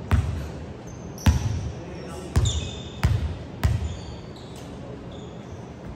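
A volleyball bounced on a hardwood gym floor five times, the last three quicker together, each bounce echoing in the large hall: a server's pre-serve dribble.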